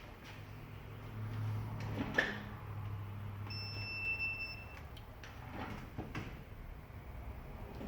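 A digital multimeter beeps once, a steady high tone lasting about a second, as its probes are touched to points on an iPhone 11 Pro Max logic board in diode mode. A few light clicks and taps sound over a low hum.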